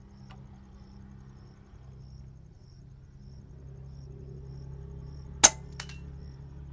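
A single air rifle shot about five and a half seconds in: one sharp crack, followed by a fainter click about a third of a second later.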